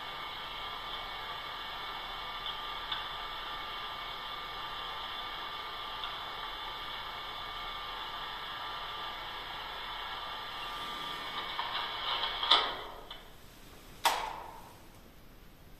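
A voice-recorder recording played back through the recorder's small speaker: a steady hiss with no voice heard in it, during a ghost-hunting EVP session. The playback stops near the end, with two sharp clicks about a second and a half apart.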